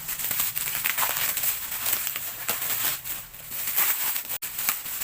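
Packaging being handled as a shipping box is unpacked by hand: irregular rustling and crinkling with short scrapes and clicks.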